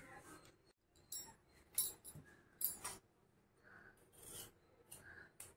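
Faint kitchen work noises: three short scrapes or clicks about one, two and three seconds in, then a few softer brief sounds.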